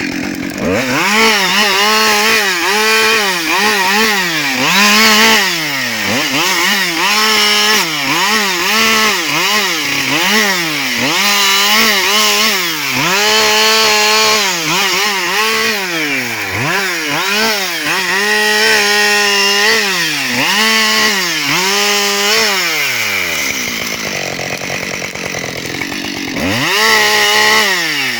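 Husqvarna 572XP chainsaw's 70 cc two-stroke engine in a run of short cuts: it revs up to full throttle, holds briefly and drops back, again and again, about every second or two. About three quarters of the way through it falls to idle for a few seconds, then revs up again near the end.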